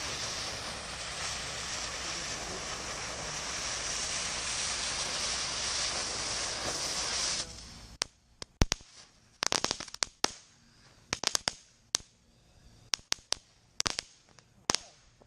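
Firework gunpowder burning in a homemade musket's barrel with a steady loud hiss for about seven seconds, then cutting off suddenly. A scattered series of sharp cracks and pops follows. The charge fizzles rather than firing the ball: it did not go off.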